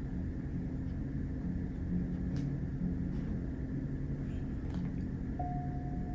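Steady low rumble with a faint hum, and a couple of light clicks. A soft sustained musical note comes in near the end.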